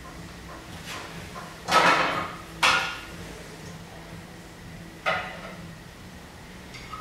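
Metal bowls and plates clattering and scraping against each other as they are set onto a stacked tower: a longer clatter about two seconds in, a sharp clank just after, and another clank about five seconds in.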